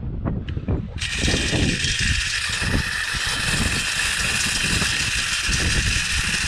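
Wind buffeting the microphone in uneven gusts. About a second in, a steady hiss sets in abruptly and holds.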